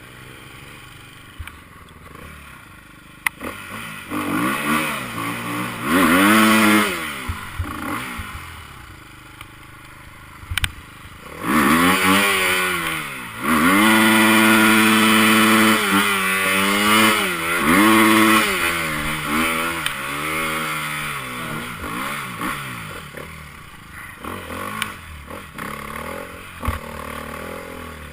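Enduro motorcycle engines revving, their pitch climbing and dropping as bikes ride through. The loudest, midway through, is one bike held at high revs for several seconds with brief dips before it fades away.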